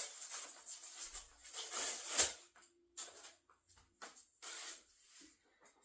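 Parts of a clothing rack being handled during assembly: scattered light clicks, knocks and rustling, with one sharper knock about two seconds in.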